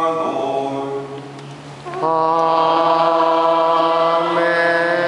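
Chanting voice in long held notes, one steady pitch after another. It breaks off briefly about a second and a half in, then resumes on a long sustained tone.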